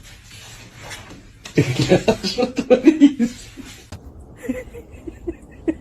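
A person laughing in short breathy bursts for about two seconds, then quieter brief sounds.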